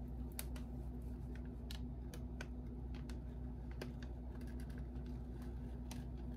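Light, irregular clicks and ticks, about two or three a second, as a metal spoon is drawn through wet acrylic paint and touches the canvas beneath, over a steady low hum.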